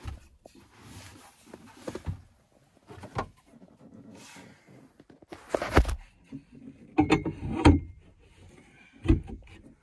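A boat's cabin table top being fitted onto its metal pedestal leg one-handed: a series of irregular knocks and bumps with rustling between, the loudest about six and seven and a half seconds in.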